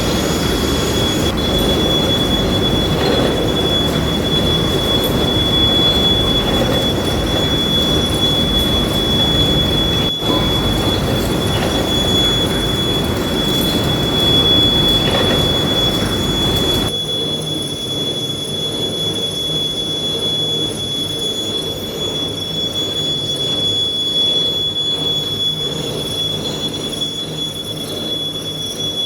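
Metal-turning lathe running while a bush is machined: a steady machine noise with a constant high whine over it. About seventeen seconds in, the low rumble drops away suddenly while the high whine carries on.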